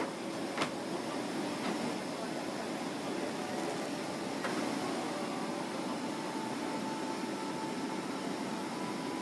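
Airliner cabin noise: a steady rushing hum, with a couple of light clicks from items being handled, about half a second in and again near the middle.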